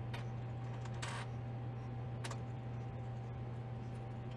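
A few soft clicks and a brief scrape as wooden hold-down clamps, their bolts and star knobs are handled on the CNC router's MDF bed: one click at the start, the scrape about a second in, another click a little after two seconds. A steady low hum underlies it.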